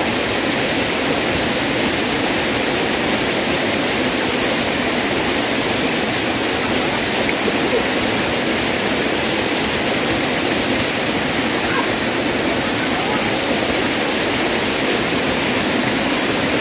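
Steady rushing of a small waterfall pouring down a rock face into a shallow pool.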